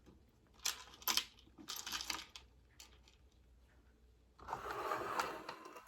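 Small parts being handled: several sharp clicks and clinks of screws and plastic siren pieces, then a brief rustle of handling about four and a half seconds in.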